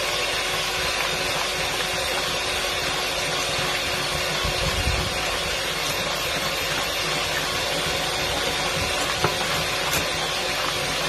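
Electric hand mixer running steadily, its beaters whisking eggs and sugar in a glass bowl: a continuous even whirr with a constant hum.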